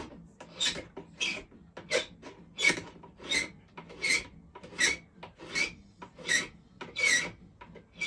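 A hand file scraping across the end of a silver ring band in steady, even strokes, about three every two seconds. The band ends are being filed flat to get them ready for a solder joint.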